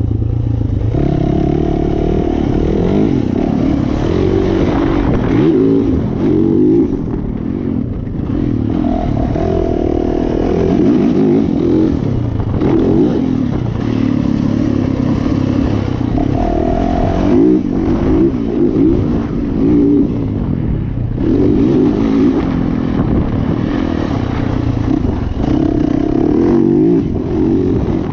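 Yamaha motocross bike's engine revving up and falling back again and again as the throttle opens and closes around a dirt track, heard up close from the rider's chest.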